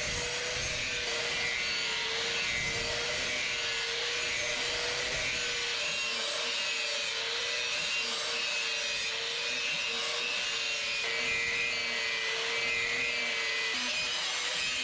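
Continuous abrasive rubbing, steel or wood being ground, filed or sawn in shaping work, with a steady hum underneath.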